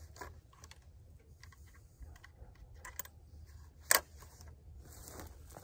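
A single sharp rifle crack nearly four seconds in, a follow-up shot, with faint small clicks and rustling around it.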